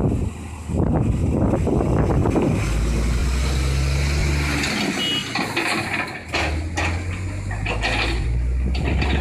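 Heavy diesel earthmoving machinery working: a CAT 320C excavator loading soil into a ten-wheel dump truck. A steady low engine drone changes in pitch a few times, over noisier stretches of rattle and grinding.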